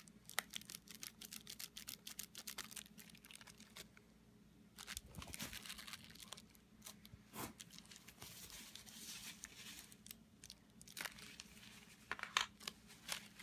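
Plastic bubble wrap crinkling and crackling in the fingers as it is worked and pierced with a hypodermic needle: quiet, irregular small clicks, a denser rustle in the middle, then a few sharper crackles near the end.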